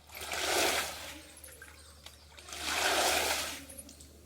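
Water splashing in two long swells, about two and a half seconds apart, as if rainwater is being pushed or thrown in strokes.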